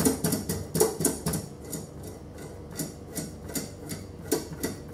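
Metal nut spun by hand along a steel threaded rod: a quick, irregular run of light metallic clicks and ticks.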